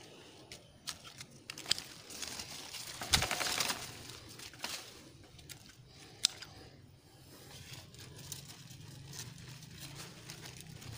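Hand pruning shears snipping grapevine canes: a few sharp clicks of the blades, the loudest about three seconds in, with grape leaves rustling and crinkling.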